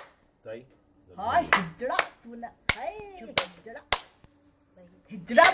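A woman clapping her hands, about six sharp single claps spaced unevenly, with her voice heard between them.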